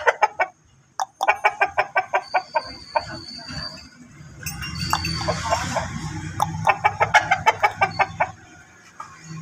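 Aseel rooster clucking in two quick runs of rapid, evenly spaced clucks, one starting about a second in and another about six and a half seconds in, with scattered single clucks between.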